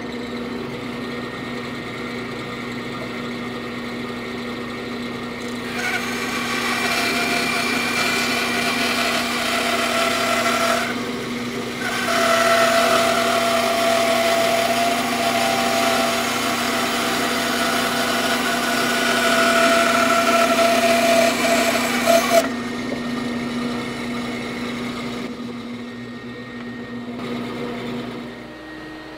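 Band saw running, then cutting through a laminated wooden kayak-paddle blade blank fed along a curved jig, for about sixteen seconds with a brief break about eleven seconds in. After the cut the saw runs free, and its hum stops near the end.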